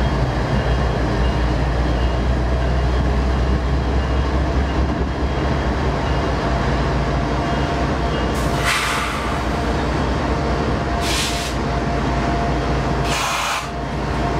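Diesel freight locomotives rolling slowly past with a steady low engine rumble. Three short hisses of air come through, about eight, eleven and thirteen seconds in.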